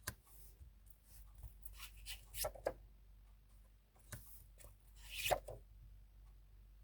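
Tarot cards being handled on a table: a few scattered soft rustles and light taps, the loudest about five seconds in.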